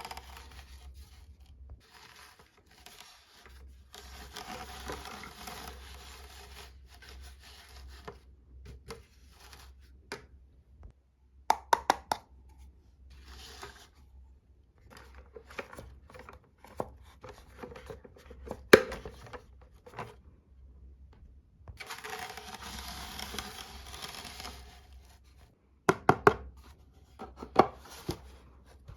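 Toy packaging being opened and handled: two stretches of rustling and tearing, broken by sharp taps and clicks, with a cluster of clicks near the end.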